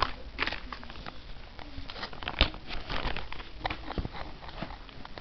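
Rustling and light clicking of small objects being handled close to the microphone, with a sharper knock about two and a half seconds in.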